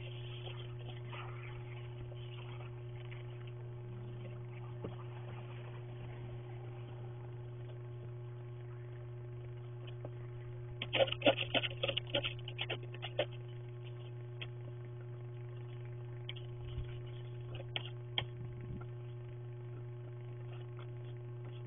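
Snow brush scraping and knocking snow off a car windshield: a cluster of quick, sharp scrapes about eleven to thirteen seconds in, and a few lighter knocks near the end. Underneath runs a steady low electrical hum from a security camera's microphone.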